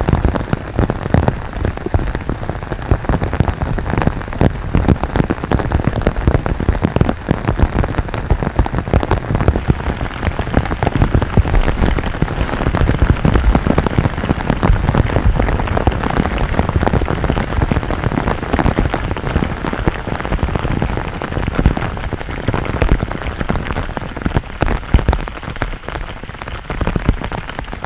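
Steady rain, countless drops hitting close by in a dense, even patter.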